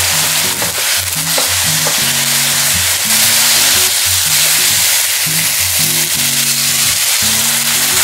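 Eggplant and minced chicken sizzling in a sauce in a nonstick frying pan as they are stirred with a spatula, with a few light clicks of the spatula early on; the sizzling grows louder about three seconds in. Background music with a steady bass line plays throughout.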